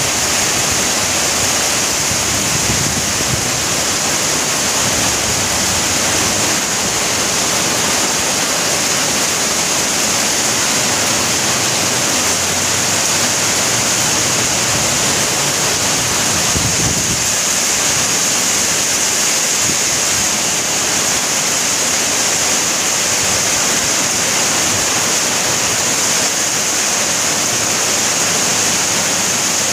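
Heavy rain falling hard and steadily, a dense, even hiss.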